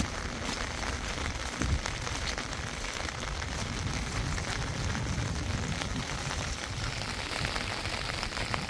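Steady rain falling, a dense patter over a low rumble, with one louder thump a little under two seconds in.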